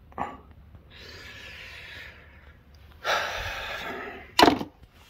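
A person breathing close to the microphone: a faint breath about a second in, a louder breath about three seconds in, then a short sharp sniff near the end.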